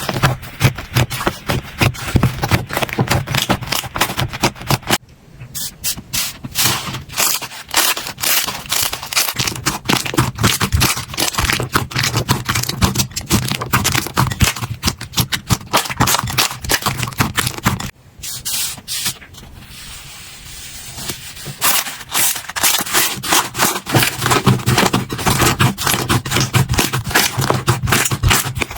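Slime being squeezed and pressed by hand, making a dense run of wet clicks and crackling pops. The clicking thins out briefly about five seconds in and again for a few seconds near the middle.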